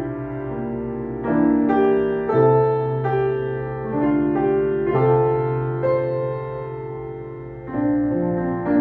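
Chickering & Sons baby grand piano being played slowly: chords and melody notes are struck every second or so and left to ring and fade.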